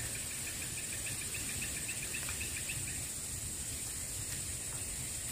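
Steady high-pitched insect chorus, with a faint, fast-repeating chirp over it that fades out about three seconds in.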